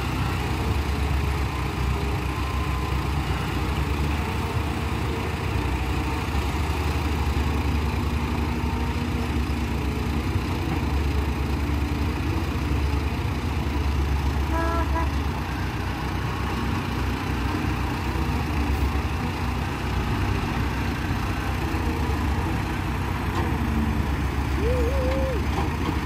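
Diesel engines of tracked excavators and a dump truck running steadily, an even low drone.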